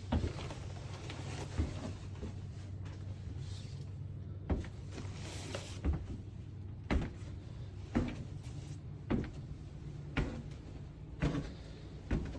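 Footsteps walking on a hard shop floor, about one step a second, over a steady low hum.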